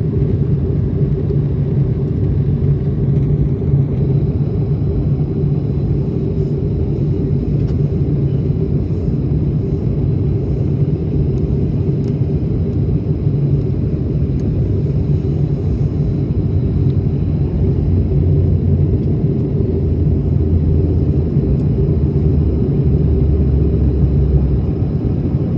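Steady cabin rumble of an airliner, engine and airflow noise heard from inside the plane, with a faint steady high whine above it. The low hum grows a little stronger over the last few seconds.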